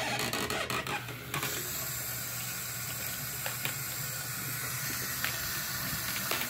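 Bathroom sink faucet turned on about a second in, then running steadily, its stream pouring into a plastic medicine bottle held under the tap and splashing into the sink basin, with a few faint light ticks.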